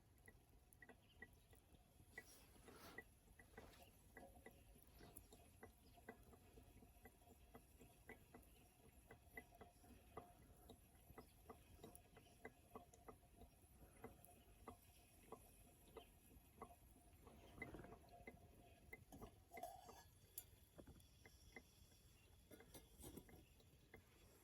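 Faint crackling and ticking of a small wood fire burning in a Sierra stove, with a few louder crackles past the middle.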